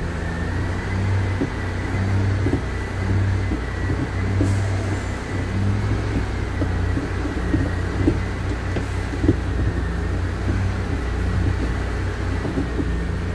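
Isuzu Forward truck's diesel engine idling, heard from inside the cab, with a thin steady whine over its low hum. Scattered light clicks and knocks come from the manual gear lever being worked through the gears, which go in without snagging.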